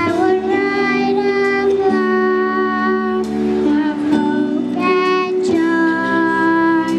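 Children's choir singing a slow song in unison, holding long notes, with instrumental accompaniment.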